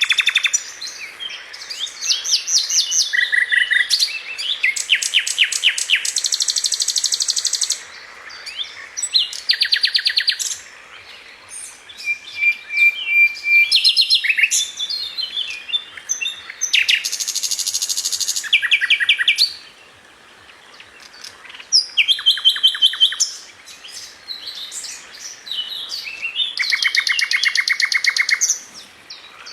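Songbirds singing: a series of fast trilled phrases of rapidly repeated high notes, each a second to a few seconds long, with short pauses between.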